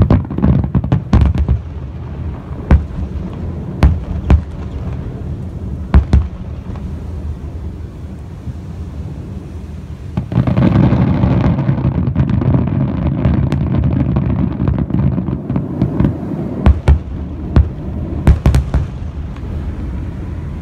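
Aerial firework shells bursting during a finale: sharp, separate booms in the first half, then several seconds of dense continuous rumbling from about halfway, with a few more booms near the end.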